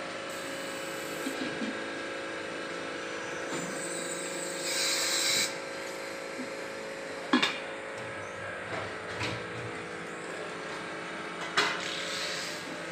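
Factory machinery humming steadily while metal pot bodies are handled, with a burst of hissing about five seconds in and two sharp metal clanks, the first about seven seconds in and the second, the loudest, near the end.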